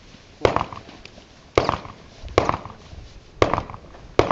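Five gunshots fired at an unhurried pace, about a second apart, as a shooter works through a 3-gun match stage from behind a barricade.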